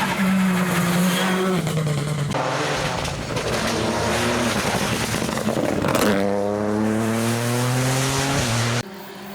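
Rally car engines running hard at high revs, pulling up through the rev range and changing pitch abruptly at several quick cuts between passes. The sound drops away suddenly near the end.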